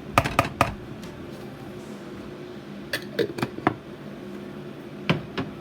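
Sharp clicks and knocks of kitchen utensils and containers being handled while meatloaf ingredients are added: about four near the start, a few more around three seconds in, and two near the end, over a steady low hum.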